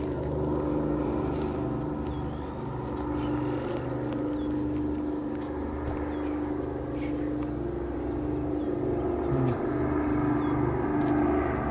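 Avro Lancaster bomber's four Rolls-Royce Merlin V12 engines droning as it flies toward the listener: a steady low note with a regular pulsing, growing a little louder near the end.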